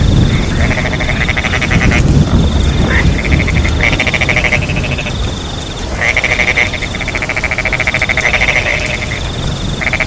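Frogs calling in a chorus: rapid pulsed croaking trills, each lasting a second or two and coming again and again, over a steady high trill of crickets. A low rumble runs underneath.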